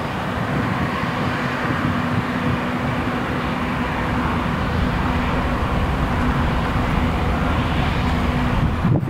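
Claas Lexion 600TT combine harvester running steadily while cutting oilseed rape: a continuous engine and machinery drone with a steady low hum, broken off abruptly near the end.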